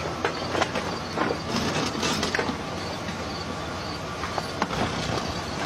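A bear clawing and pulling at a pickup truck's bed, giving irregular knocks and scrapes of metal over a steady rushing noise.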